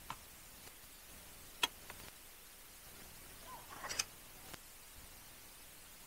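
A few scattered sharp clicks and taps over a quiet steady background, the loudest about a second and a half in and a short cluster just before four seconds.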